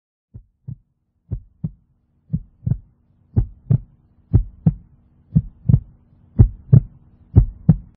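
Heartbeat sound effect: a slow lub-dub, eight double thumps about a second apart, growing louder, over a faint steady hum.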